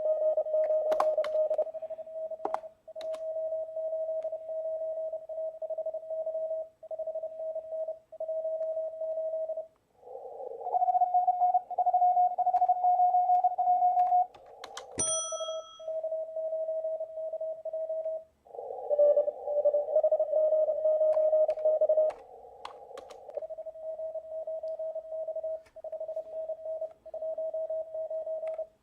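Morse code (CW) tones from a ham radio receiver during a contest: keyed dits and dahs from stations at two slightly different pitches, over band noise heard through a narrow filter. A few sharp clicks come in between.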